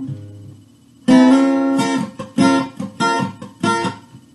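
Capoed acoustic guitar: a ringing chord is damped at the start, then a chord on the top strings is strummed about a second in and struck four more times at an even pace, each one fading before the next.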